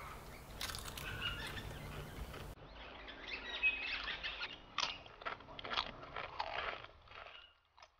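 Someone chewing crunchy tortilla chips (Doritos), with a run of short, crisp crunches starting about three seconds in.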